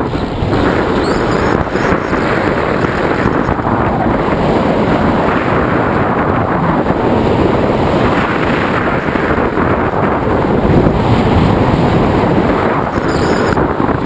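Rushing wind buffeting the microphone of a camera mounted on a tandem hang glider in flight, a loud, steady, fluttering noise.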